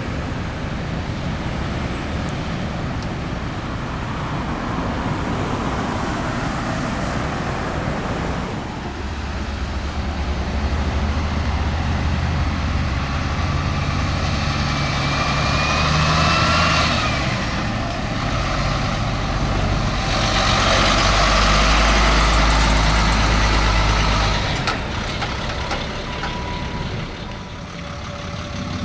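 Road traffic passing, with a large vehicle's engine running close by from about nine seconds in, loudest around twenty seconds in and fading a few seconds before the end.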